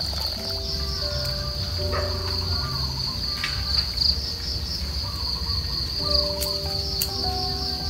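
Insects chirring steadily: a continuous high-pitched, pulsing drone without a break.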